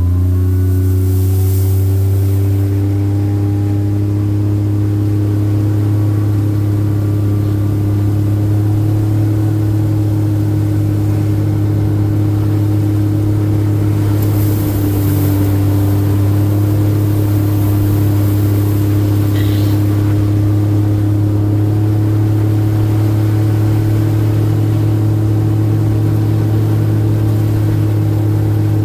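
A vehicle's engine running under way: its pitch rises a little in the first few seconds as it picks up speed, then holds steady at cruising.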